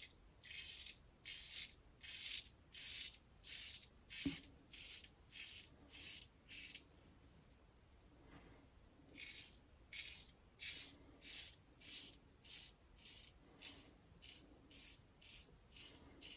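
A 3D-printed plastic safety razor scraping through four days of lathered whisker stubble in short, crunchy strokes, about two a second, with a break of about two seconds partway through.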